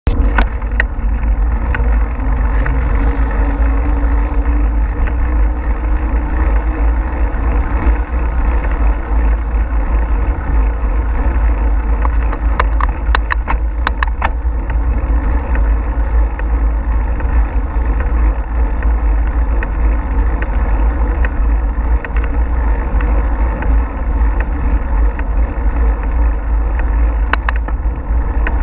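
Wind buffeting the GoPro's microphone on a moving bicycle: a steady, loud, low rumble, with a short cluster of sharp clicks about halfway through.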